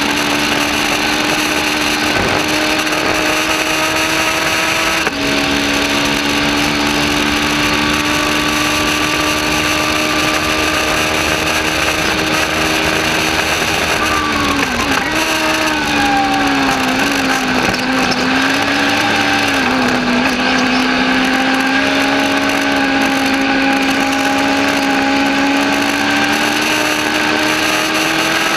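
Legends car's Yamaha 1250 cc four-cylinder motorcycle engine running hard, heard from inside the open cockpit under heavy road and wind noise. The engine note holds high and steady, with a brief dip about five seconds in. Around halfway the pitch drops and wavers as the driver comes off the throttle, then it climbs slowly again.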